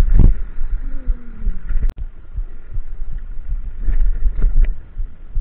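Wind buffeting and road rumble on a camera mounted on a mountain bike being ridden along a street, with irregular low thumps from bumps and vibration. A sharp click about two seconds in.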